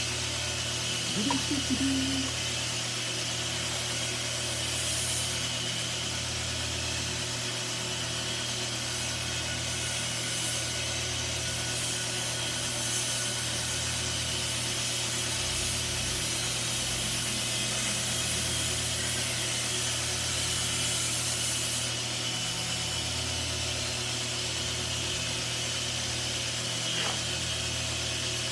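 A small power tool running steadily, an even whirring hiss with a slow pulse in the low end about every two seconds.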